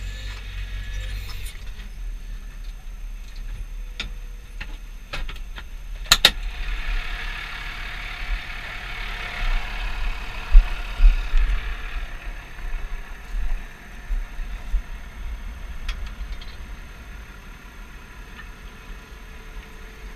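Valtra 8350 tractor's diesel engine running with a low rumble. A few sharp knocks come between about four and six seconds in, followed by a hiss that swells and fades over the next several seconds.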